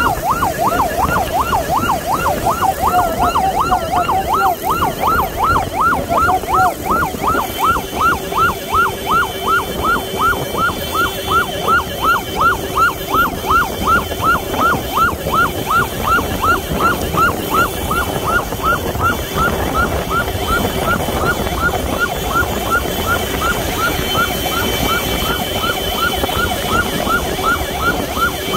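Electronic siren on a motorcycle sidecar ambulance, sweeping rapidly up and down about two and a half times a second in a continuous yelp, over the running of motorcycle engines in traffic.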